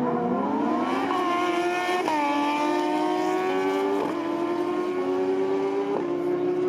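A motorcycle engine accelerating hard through the gears on a drag run: its pitch climbs, drops at each upshift about one, two, four and six seconds in, and climbs more slowly in each higher gear.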